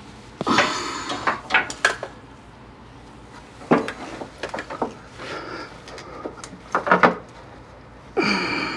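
Metal clanking and rattling in several irregular bouts, some ringing briefly, as metal hardware and tools are handled at the underside of a Jeep's transmission.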